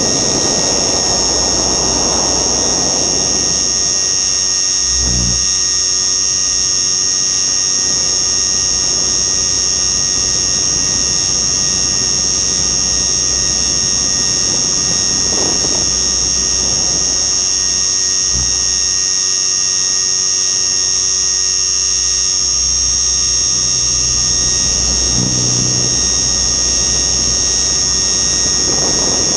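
RC helicopter in flight, heard close up from its onboard FPV camera: a steady, loud, high-pitched whine of the motor and rotor that does not let up. Brief low rumbles of wind on the microphone come about five, eighteen and twenty-five seconds in.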